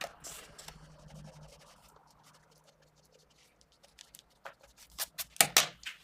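A mechanical pencil with 0.5 mm 2B lead (Pentel GraphGear 500) scratching across paper in short, quick sketching strokes, with a louder flurry of strokes about five seconds in.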